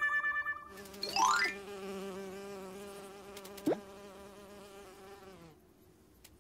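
A steady buzzing drone that rises in pitch about a second in, then slowly fades and cuts off near the end, with a short upward swoop in the middle. The tune of the cartoon's music ends just before the buzz starts.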